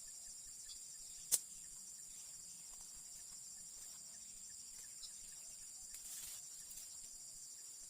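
Steady high-pitched chorus of crickets or similar insects trilling, with one sharp click a little over a second in.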